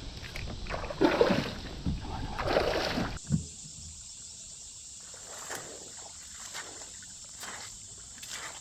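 Loud, irregular water splashing and knocking around a kayak for about three seconds, then an abrupt cut to a quieter steady outdoor background with faint scattered taps.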